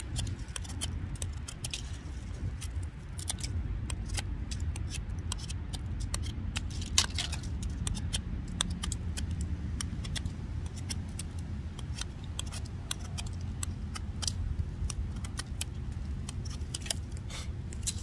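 Buck 110 folding knife shaving a wooden stick: a series of short, irregular scraping cuts as the blade takes off curls. A steady low wind rumble on the microphone runs underneath.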